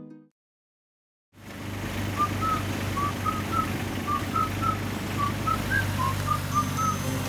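After a second of silence, a mini excavator's diesel engine starts to be heard running steadily as it digs. Over the engine comes a repeated short two-note whistle, a pair of notes every half second or so.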